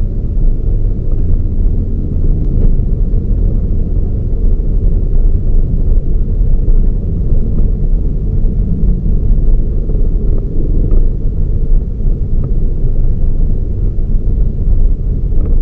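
Toyota Raize small SUV being driven: a steady low rumble of engine and road noise.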